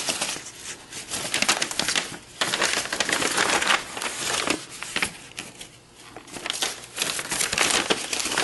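Paper and plastic packaging crinkling and rustling in irregular bursts as it is handled.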